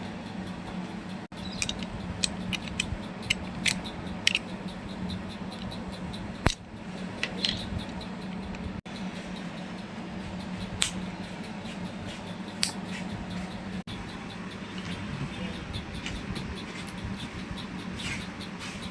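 Battery-powered toy Vande Bharat train running: a steady motor hum with irregular sharp clicks and ticks, broken by brief gaps where the audio cuts out.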